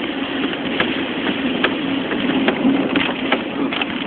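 Car cabin noise while driving: a steady rush of road and engine noise with a low hum, broken by scattered sharp ticks.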